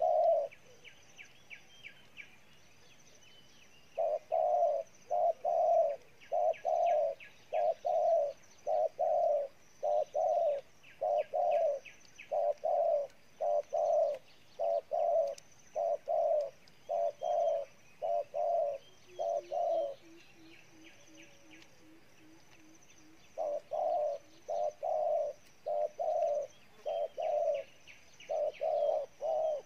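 Spotted doves cooing: long runs of short, low coos, a little more than one a second, with a pause near the start and a longer one about two-thirds through.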